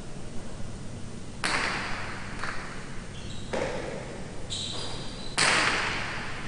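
Jai alai rally: the hard pelota cracks against the fronton walls and into the players' wicker cestas, each hit ringing out in the hall's echo. The two loudest hits come about one and a half seconds in and about five and a half seconds in, with lighter ones between.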